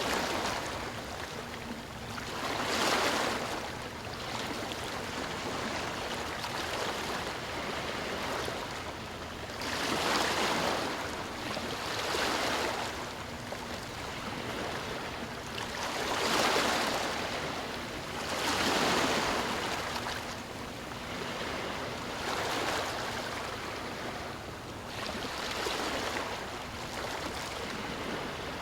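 Sea waves washing ashore: a steady rush of surf that swells and eases every few seconds as waves break.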